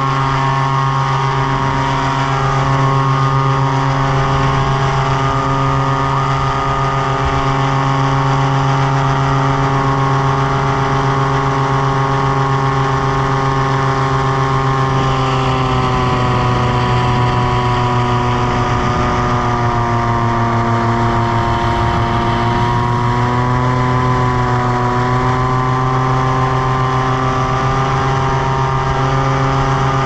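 Tandem paramotor trike's engine and propeller running at high power through takeoff and climb, a steady loud drone. Its pitch sags slightly about halfway through and then comes back up.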